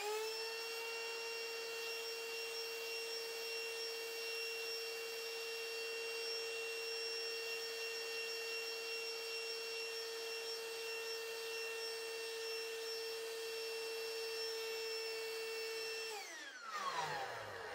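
Tesco electric air pump whining at a steady pitch. It spins up with a quick rise in pitch at the start, then winds down with a falling pitch after it is switched off near the end.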